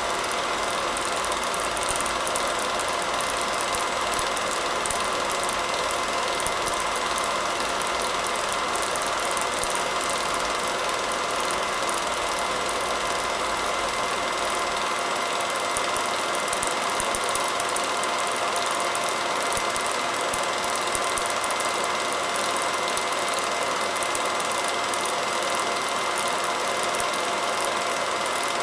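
Home-movie film projector running steadily, its mechanism giving a constant whir.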